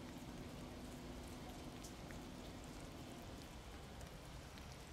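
Faint light rain: a steady soft hiss with scattered small drips and ticks.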